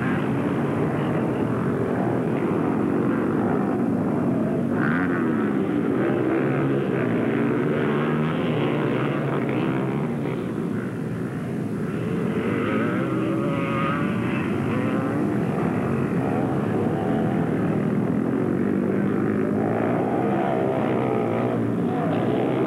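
Engines of several racing three-wheeled ATVs (ATCs) revving hard and backing off as they run the dirt track. Their pitches rise and fall over one another.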